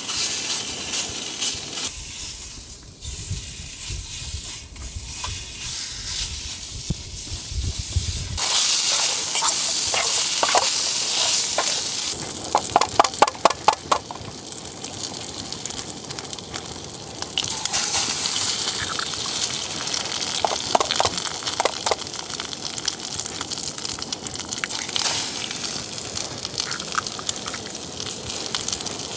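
Bacon, then eggs, frying and sizzling in a lightweight frying pan on a small gas canister burner. The sizzle grows much louder about a third of the way in, and a quick run of light ticks comes near the middle.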